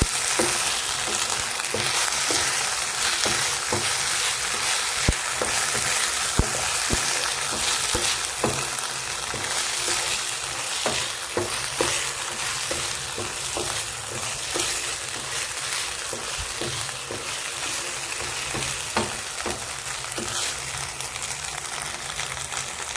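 Onions with tomato sauce and soy sauce sizzling in hot oil in a frying pan as they are stirred and sautéed, a steady hiss with occasional sharp clicks.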